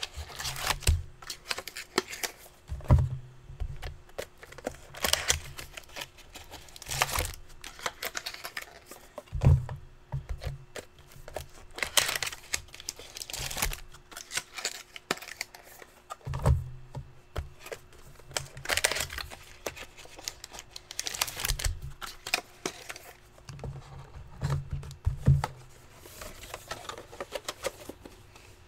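Trading cards and their packaging being handled: repeated short rustles, crinkles and tearing sounds of paper and plastic wrap, with scattered taps and knocks on a table, over a faint steady hum.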